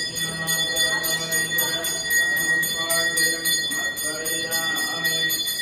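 A Hindu temple hand bell rung rapidly and continuously during puja: a steady bright ringing, struck about five or six times a second.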